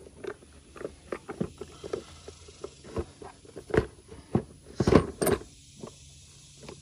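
Plastic parts of a Kawasaki Brute Force 300 ATV's airbox being handled and worked loose by hand: a run of irregular clicks and knocks, the loudest a quick cluster about five seconds in.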